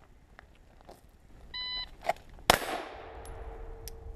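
A shot timer beeps once. A little under a second later a 9 mm Glock 17 pistol fires a single shot from the draw, after a sharp click just before it, and the shot echoes away. The draw-to-shot time is 0.96 s. A steady ring lingers after the shot.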